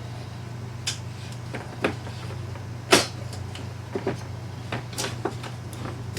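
Scattered clicks and knocks of metal drawer slide rails and pantry drawer hardware being handled and fitted together, the loudest knock about three seconds in.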